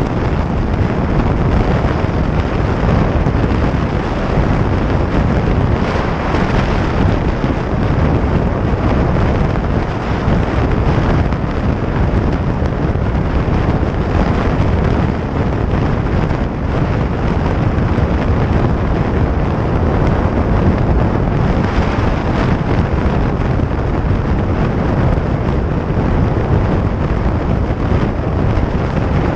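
Harley-Davidson Iron 883 motorcycle at highway speed: steady wind noise buffeting the microphone over the bike's air-cooled V-twin engine and road noise.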